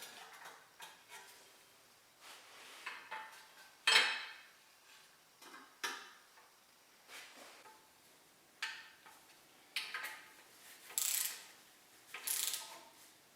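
Hand tools and metal engine parts clicking and clinking irregularly during bolt-up of the oil pickup tube and splash tray, with a sharp loud clank about four seconds in.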